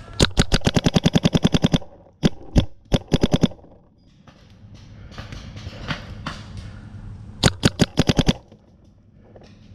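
Paintball marker firing rapid-fire: a quick burst of about fifteen shots at roughly ten a second, a handful more shots a couple of seconds in, then another burst of about eight shots near the end.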